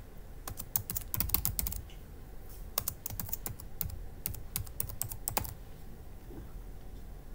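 Typing on a computer keyboard: two quick runs of key clicks with a short pause between them, stopping about five and a half seconds in.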